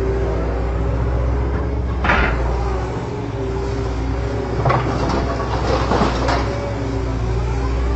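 A Huina RC excavator's electric motors whine steadily as the arm swings round, with a sharp clatter about two seconds in. From about five seconds in, a bucketful of soil rattles down into the plastic bed of a toy dump truck for just over a second.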